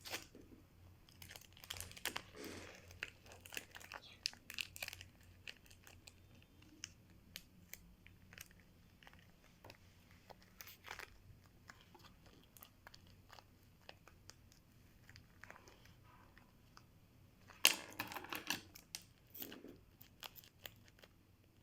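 Hands working sticky tape and craft materials: scattered crinkling and clicking with bouts of tape tearing, the loudest burst of tearing about three-quarters of the way through.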